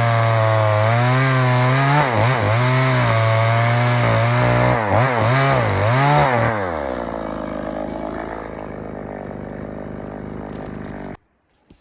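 EFCO chainsaw running at full throttle in a log cut, its engine note dipping and recovering several times under load, then falling back to idle about seven seconds in. The sound cuts off abruptly near the end.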